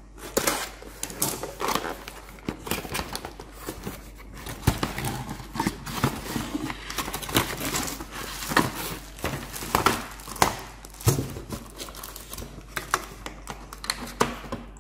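Cardboard box and its packaging being handled and opened: irregular rustling and crinkling of the plastic wrap, with many sharp scrapes and taps of cardboard.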